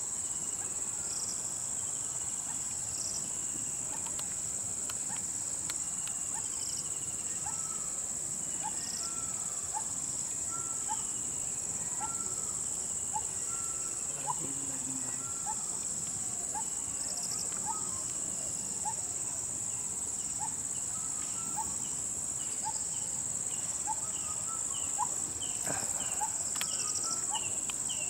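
A steady, high-pitched drone of insects. Over it a bird repeats short rising call notes about a second apart, coming faster near the end, with a few sharp snaps here and there.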